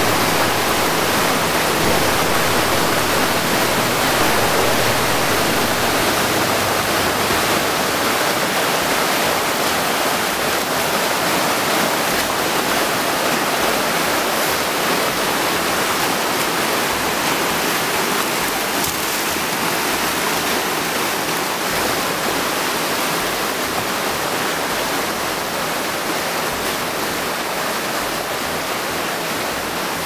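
Stream water cascading over rocks, a steady rush that slowly grows quieter.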